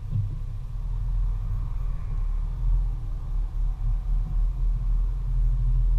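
Low rumble of a car's engine and running gear heard from inside the cabin, rising and falling a little in strength as the car crawls in slow traffic.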